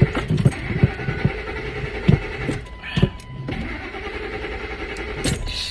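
Work truck engine being cranked by its starter without catching. The cranking stops about two and a half seconds in, and a steady electronic beep sounds for about a second after it.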